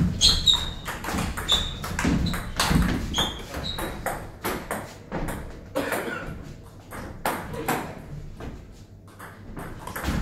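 Table tennis rally: the ball clicking off the bats and pinging on the table, several strokes a second for the first few seconds, then scattered lighter bounces and clicks between points, and a new exchange near the end.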